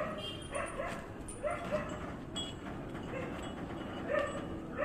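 A dog barking repeatedly in short yaps, often in quick pairs.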